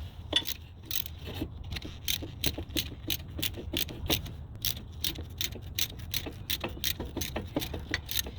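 Metallic clicking, about three or four uneven clicks a second, from a hand tool being worked to press the brake caliper piston back into its bore.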